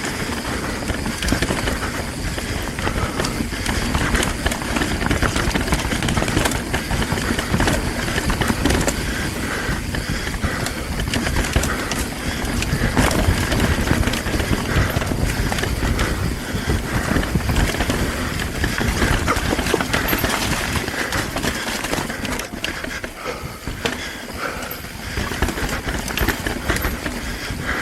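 Mountain bike descending rough singletrack: the tyres roll over dirt, rocks and roots, the bike rattles and clatters over the bumps, and wind rushes over the camera microphone.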